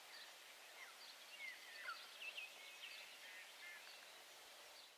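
Faint bird calls: a few short chirps and sliding whistles, mostly in the first half, over a quiet outdoor hiss.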